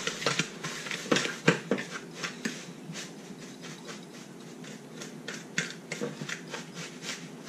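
Hands mixing dry brine of brown sugar and salt in a plastic bowl: gritty rustling and scraping with irregular soft clicks.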